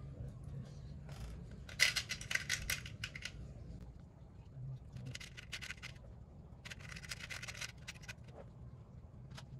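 Three bursts of rapid small clicks and rattles from small metal carburetor parts being handled while jets are changed, with a steady low hum underneath.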